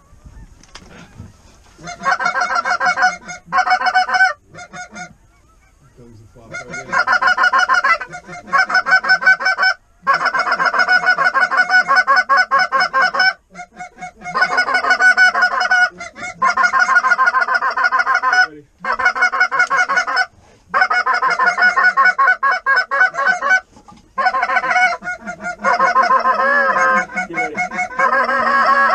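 Canada goose honking and clucking: rapid, loud runs of calls lasting several seconds each, broken by short pauses, from about two seconds in.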